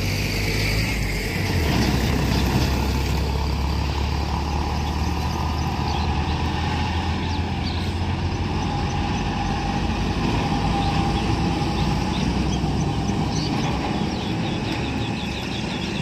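Container truck's engine running as it drives along the road, a steady low drone.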